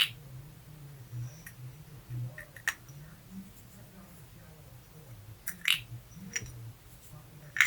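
A few scattered light clicks and taps of small carburetor parts being handled and set down during disassembly, over a low steady hum.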